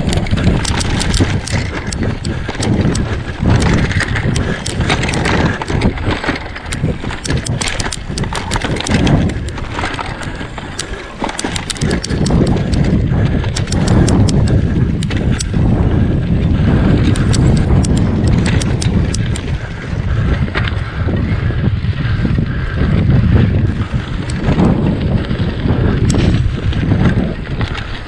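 Mountain bike riding fast over rough, stony moorland single track: tyres rumbling and crunching over the ground, with a constant clatter of knocks and rattles from the bike jolting over rocks.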